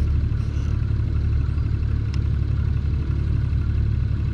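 A boat's outboard motor running steadily at low trolling speed as a constant low rumble. There is one faint tick about two seconds in.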